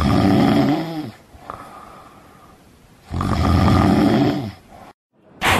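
A person snoring loudly: two long snores about three seconds apart, each falling in pitch as it trails off, with a quieter stretch between them. A loud new sound starts abruptly right at the end.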